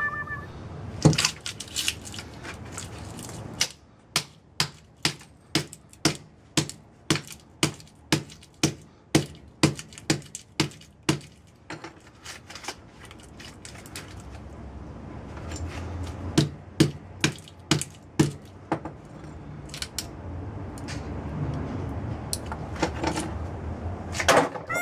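Sharp metal taps and clinks. They come about two a second for several seconds, then more scattered over a low rumble, as scrap from microwave transformers is handled and struck.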